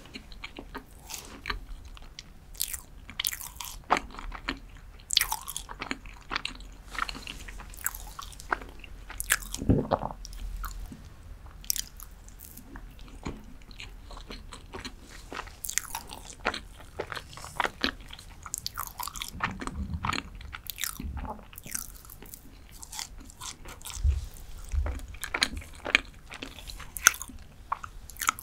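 Close-miked chewing of soft dark chocolate cheesecake: irregular wet clicks, smacks and small crackles from the mouth, with a few soft low thumps.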